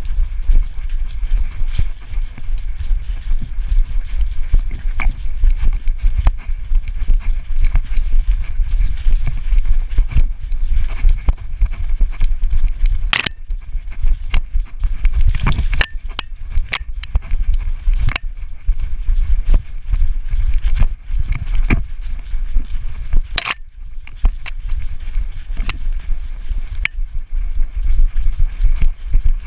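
A dog running hard over dry leaf litter, heard from a GoPro Hero3 strapped to her back. Her gait makes a fast, continuous run of thumps and jolts, with rustling and crackling of leaves underfoot and a heavy low rumble from the camera being shaken.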